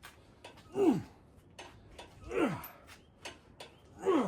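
A man grunting with effort three times, about a second and a half apart, each grunt falling in pitch, as he heaves on a pry bar to pull a bent truck bracket back out. Light clicks between the grunts.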